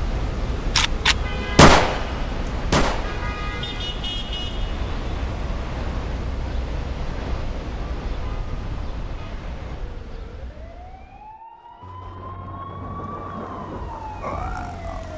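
Four sharp gunshots in about two seconds, the third the loudest. Later an ambulance siren wails, rising slowly and then falling.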